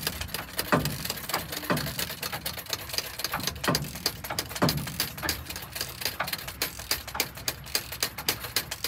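Rapid mechanical clicking in repeated strokes as a Detroit Diesel 6V71 two-stroke engine is turned over by hand (barred over). A short falling squeak comes with several of the strokes, about once a second.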